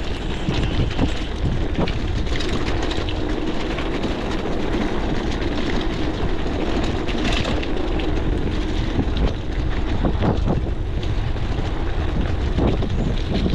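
Oggi Velloce gravel bike riding over a cobblestone street, with a steady rough rumble of the tyres and many small rattles and clicks from the bike.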